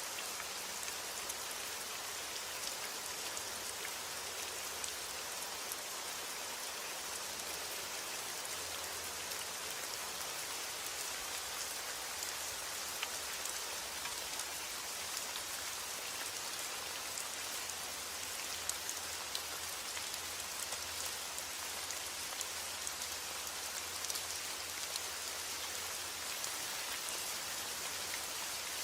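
Steady heavy rain falling on a roof, a dense even hiss with many individual drops ticking through it.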